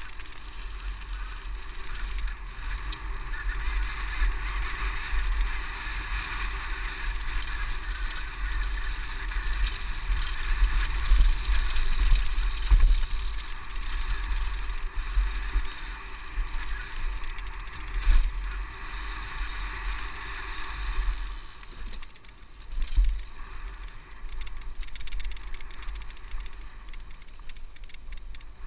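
On-bike audio of a mountain bike riding down a dirt trail: a steady low rumble of the ride shaking the camera mount, over a buzzing, honking noise from the bike that fades about 21 seconds in, leaving a few rattles and knocks.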